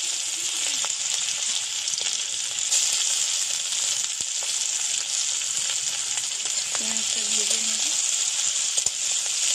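Sliced onions frying in hot oil in a kadai, a steady sizzle.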